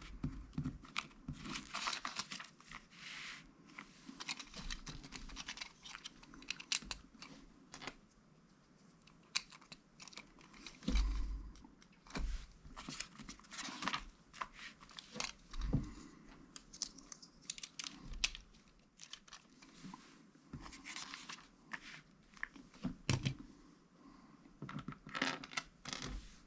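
Lego bricks being handled and pressed together: irregular small plastic clicks and taps, with bursts of rustling.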